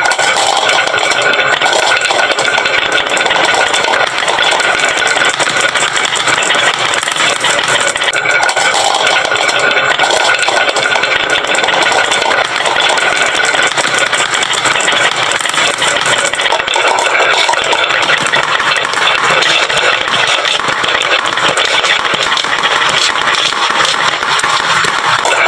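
Many marbles clattering without a break down a wooden marble-run slope, a loud, steady, dense rattle.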